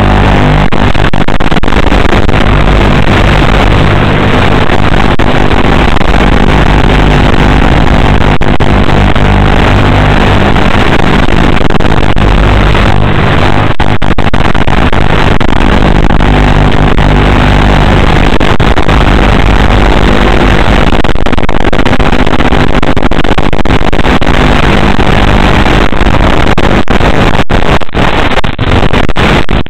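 Electric motor and propeller of a radio-controlled FPV plane droning through the onboard camera's microphone, loud and distorted, with a steady low hum under a rough rushing noise. Near the end the sound cuts out in short gaps as the analog video link starts to break up.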